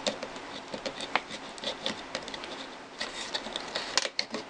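Serrated edge of a small stainless-steel dog-tag knife sawing at a heavy-duty nylon zip tie: an uneven run of scratchy rasps and clicks that grows thicker and quicker about three seconds in.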